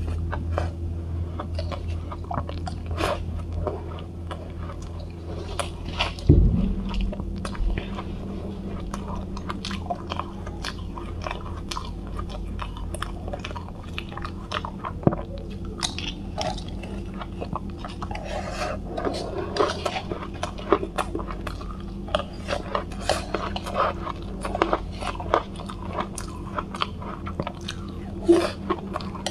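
Close-miked crunching and chewing of soft cotton ice: a rapid run of crisp little crunches as mouthfuls of fluffy frozen ice are bitten and broken down. A single louder thump comes about six seconds in, over a faint low hum.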